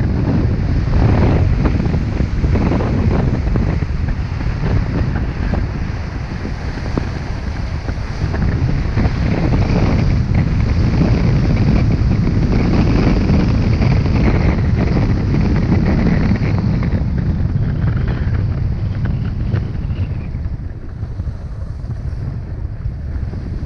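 Wind buffeting a GoPro's microphone during a run down a groomed snow slope, mixed with the steady scrape and hiss of edges sliding on the snow. The rush eases somewhat in the last several seconds.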